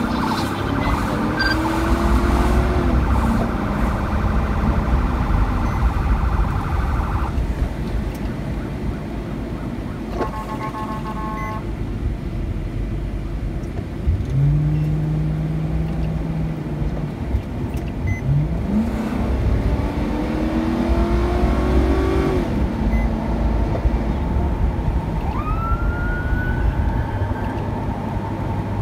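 Police car sirens sounding in short rising and falling whoops, with a brief horn blast about ten seconds in and a higher rising yelp near the end. Under them runs steady vehicle engine and tyre noise on wet road.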